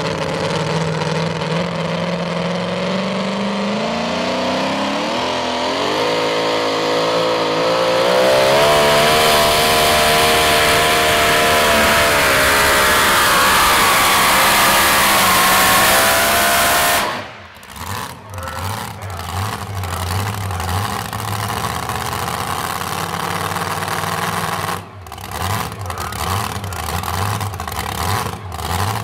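The supercharged engine of a modified two-wheel-drive pulling truck revs up and runs at full throttle under load as the truck pulls the sled. About halfway through the throttle cuts off suddenly, and the engine runs on at a low, uneven idle.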